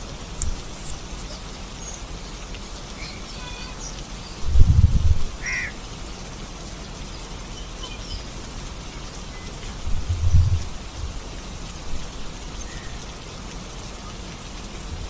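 Steady rain falling, with a few short bird calls. Two brief low rumbles, about four and a half seconds in and again about ten seconds in, are the loudest sounds.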